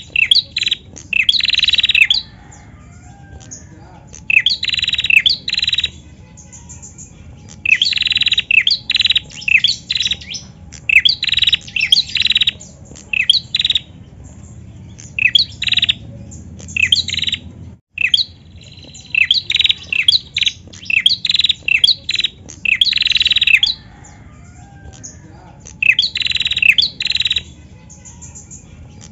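Female prenjak calling: repeated runs of rapid, sharp, high chirps, each run a second or two long, with short pauses between.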